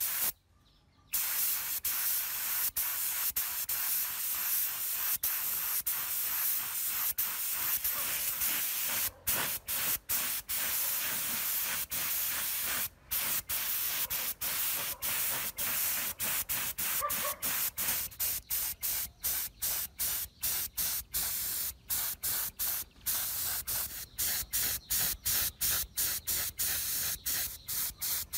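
Spray paint hissing in repeated short bursts, broken by brief pauses about twice a second, starting about a second in, with the pauses deeper and sharper in the second half.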